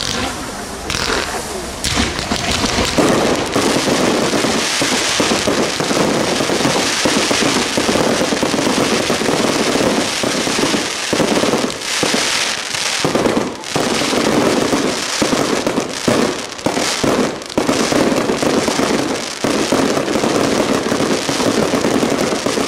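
A dense, continuous barrage of aerial fireworks: many sharp bangs and pops overlap into a nearly unbroken crackle, easing off only briefly a few times.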